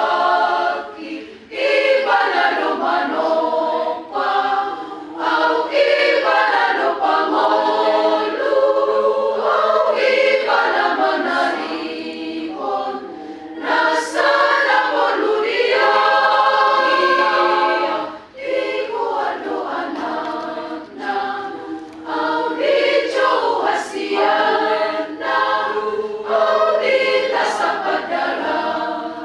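Choir singing, phrase after phrase, with brief pauses between phrases, including one about a second and a half in and another past the middle.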